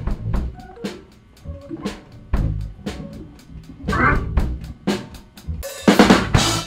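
Live band of electric bass, drum kit and keyboard winding down a song: loose, irregular drum hits over low bass notes, then a loud burst of crashing near the end.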